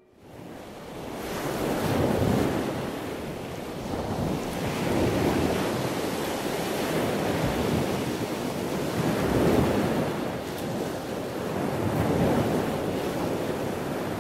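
Ocean surf breaking on a beach, swelling and easing several times, with wind rumbling on the microphone.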